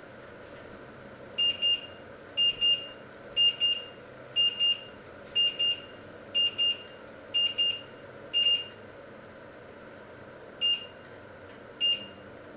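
Glass-ceramic cooktop's electronic timer alarm beeping: seven quick double beeps about once a second, then a longer single beep. After a pause come two single beeps as a finger presses the touch controls.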